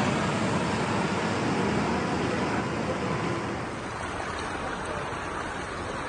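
Steady rushing noise of floodwater flowing, dropping a little in level about four seconds in.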